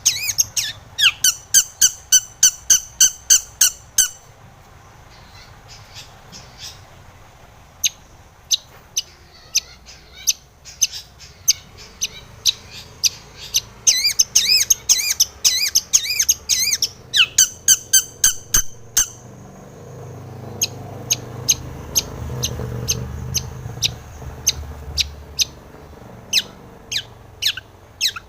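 Long-tailed shrike (cendet) calling in bouts of fast, harsh, evenly repeated notes, about five a second, broken by pauses of a few seconds. This is the bird singing in full voice.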